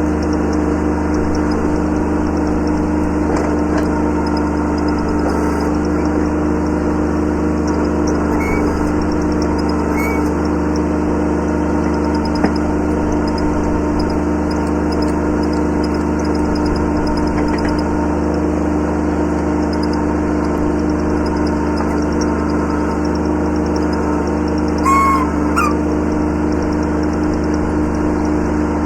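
Kubota B7100 subcompact tractor's three-cylinder diesel engine running steadily at a constant speed, with a few short high squeaks and one sharp click.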